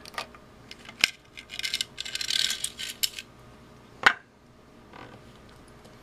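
Disassembling a Kasuntest ZT102 multimeter: small screws and the hard plastic case clicking and scraping as they are handled, with a burst of scratchy clicking about two seconds in and one sharp click about four seconds in.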